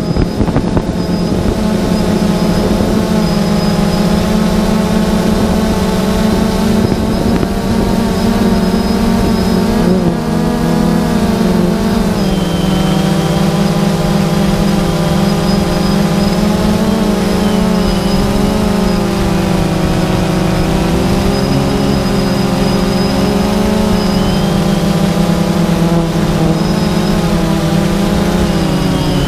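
A drone's motors and propellers running in flight, a steady buzzing hum whose pitch drifts up and down with the throttle, with wind noise on the onboard camera's microphone.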